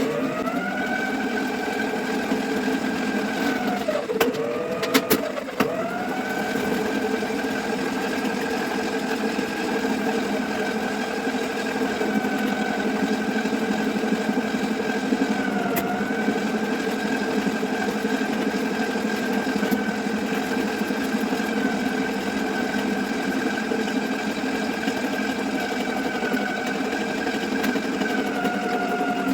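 Motorised drain-cleaning machine (plumber's sewer snake) running steadily. Its pitch dips briefly a few times as it loads up, with a few sharp clicks about four to five seconds in.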